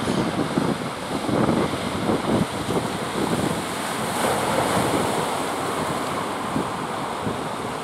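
Ocean surf breaking and washing, with wind buffeting the microphone in irregular gusts; the wash swells about four seconds in.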